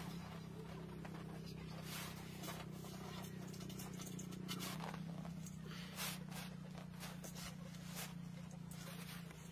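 Soft rustles and light taps of hands working flour-dusted noodle strands in and beside a metal basin, over a steady low hum; one sharper click about six seconds in.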